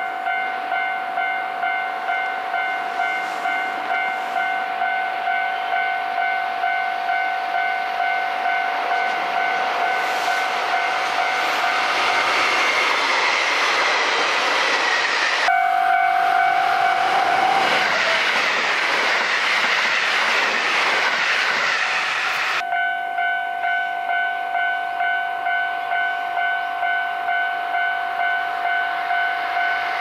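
Level-crossing warning bell ringing in a steady beat, a little over one stroke a second. From about twelve seconds in, a train passes over the crossing for some ten seconds, its rushing wheel noise drowning the bell, which rings on once the train has gone.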